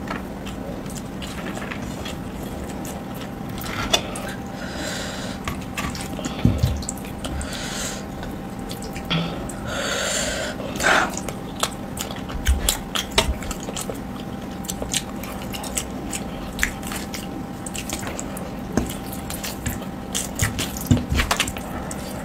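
Close-miked wet eating sounds: a bare hand squishing and mixing rice with curried potatoes on a steel plate, with chewing and many sharp, wet mouth clicks. A faint steady hum runs underneath.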